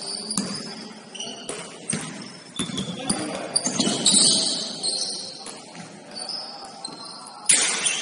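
Basketball game on a gym court: the ball bouncing and striking in irregular knocks, sneakers squeaking, and players' voices calling out. There is one loud sharp bang near the end.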